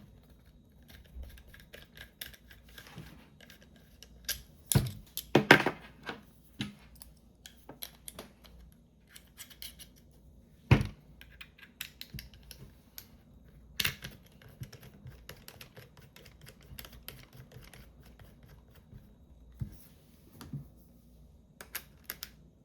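Plastic mounting fingers of an HSU magnetic latch mount for a GoPro clicking and rattling on a stick as it is moved, with a few louder sharp knocks. The rattle comes from play in the fingers' joint.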